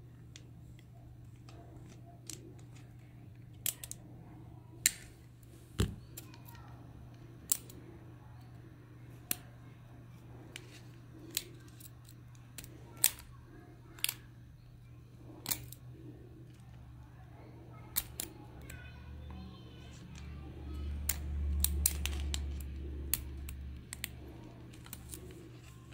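Sharp small metal clicks from pliers and tweezers working small coil springs onto a plastic toy, one every second or two. A low rumble swells for a couple of seconds about twenty seconds in, under a steady low hum.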